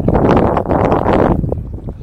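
Wind buffeting the camera microphone: a loud, rough rumble with crackles, easing off near the end.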